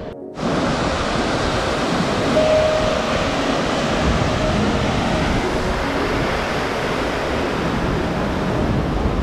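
Loud, steady rush of river water, cutting in abruptly a moment in and running on without a break.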